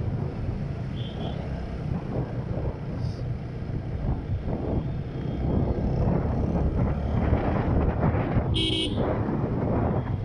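Wind rushing over the microphone and road noise of a motorcycle riding in traffic. A short, high vehicle horn toot sounds about eight and a half seconds in.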